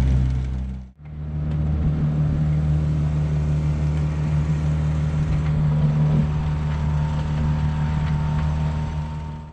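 A sailboat's motor running steadily with an even hum. The sound breaks off for a moment about a second in, and the hum comes back at a slightly different pitch.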